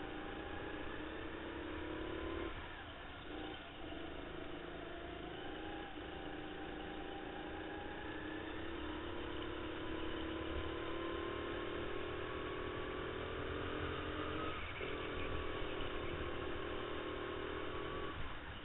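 Racing kart's motor heard onboard, its pitch climbing steadily under throttle and falling away sharply several times as the kart slows for corners.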